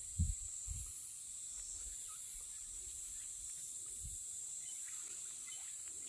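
Steady, high-pitched chorus of insects, with a few dull low thumps in the first second and another about four seconds in.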